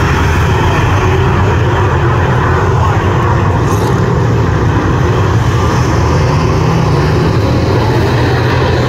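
A pack of speedway saloon cars racing on a dirt oval, their engines together making a loud, steady noise with no let-up.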